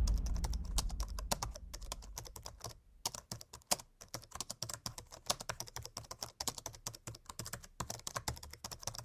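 Computer keyboard typing sound effect: rapid, irregular key clicks. A low rumble fades out over the first couple of seconds.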